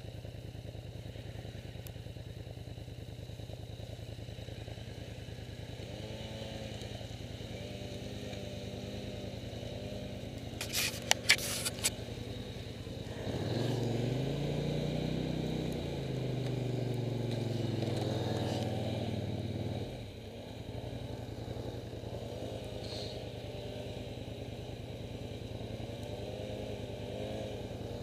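ATV engine running steadily as a quad fitted with rubber tracks crawls through deep snow; the engine's pitch rises and it runs louder from about 13 to 20 seconds in, then drops back. Three or four sharp clacks come about eleven seconds in.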